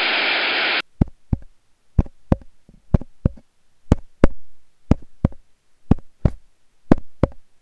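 A short burst of TV static hiss that cuts off under a second in. It is followed by a run of sharp knocks in pairs, about one pair a second.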